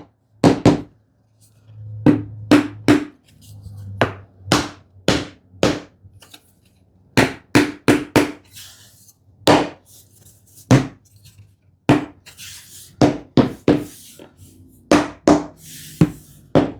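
Cross-peen (Warrington) hammer tapping wooden wedges into a plywood slat-alignment jig to snug the slats together. It makes about two dozen sharp taps, irregularly spaced and often in quick groups of two to four.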